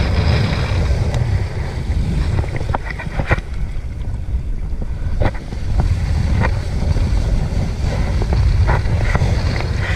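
Heavy wind buffeting on an action camera's microphone as a kiteboard rides fast over choppy water, with the rush of spray and scattered short splashes and knocks as the board hits the chop.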